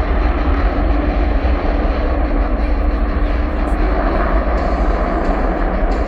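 Steady, loud jet roar from the Blue Angels Diamond, four F/A-18 Super Hornets, climbing away after an afterburner takeoff.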